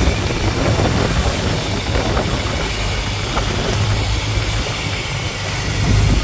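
Fishing boat's inboard engine running steadily under way, a low hum under the rush and splash of water churning along the hull and wake.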